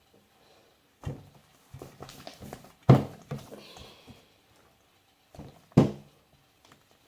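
Irregular knocks and scraping from a utensil working slime in a cup, the loudest knock about three seconds in and another near the end.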